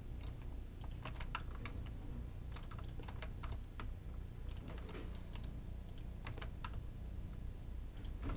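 Keystrokes on a computer keyboard: scattered, irregular single clicks over a low steady hum.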